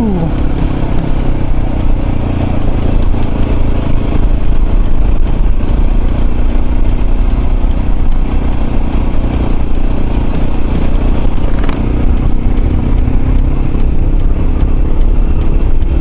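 Mondial RX3i Evo's 250 cc single-cylinder engine running as the bike rides over gravel, with tyres clattering on the loose surface. The engine note drops sharply right at the start as the revs fall, then holds fairly steady.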